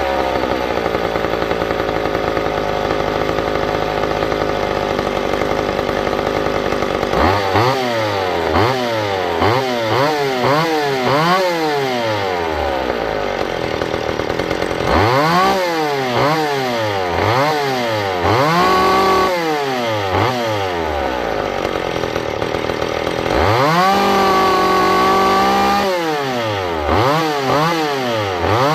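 McCulloch two-stroke chainsaw engine running steadily at first, then revved up and down in quick repeated throttle blips about seven seconds in. Around two-thirds of the way through it is held at a high, steady pitch for about two seconds, then blipped again.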